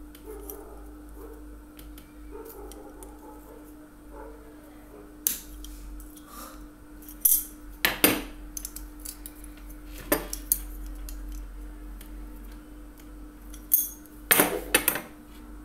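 Sharp metallic clicks and clacks of steel pliers working an aluminium heat sink as its edges are bent around a PTC heater, with the pliers knocked against the metal and set on the table. The clicks are scattered, a cluster of several coming near the end, over a steady low hum.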